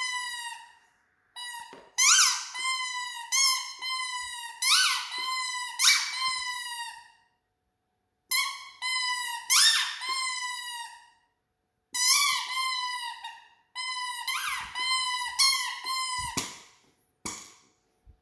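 Squeaky toy squeezed over and over: a string of high squeaks, each about half a second long, coming in runs with short pauses between.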